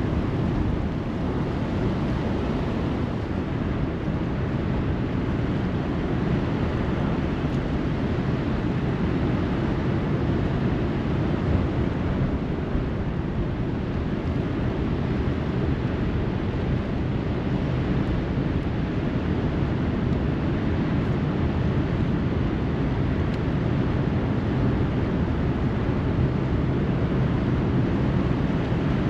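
Steady rush of fast, turbulent river current below a dam, mixed with wind buffeting the microphone.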